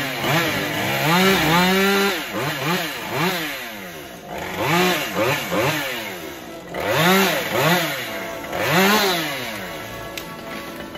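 Chainsaw cutting tree limbs, revved up and let off again and again, a rising-and-falling burst every second or two, settling lower in the last second or so.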